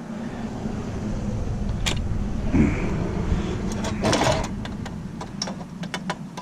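Power drill running steadily, backing out tightly fastened screws. Sharp metallic clicks and clinks come once about two seconds in and then in a cluster in the second half. The drill stops at the very end.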